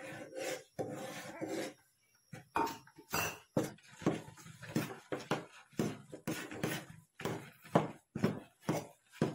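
Steel spoon scraping and knocking against an aluminium pot as rice flour is stirred into hot water for khichiya dough. After a smoother scrape at first, it comes in short strokes about twice a second.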